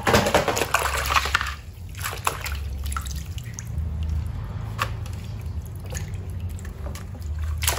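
Leafy greens being washed by hand in a metal basin of water: loud sloshing and splashing for about the first second and a half, then quieter drips and small splashes as leaves are lifted out.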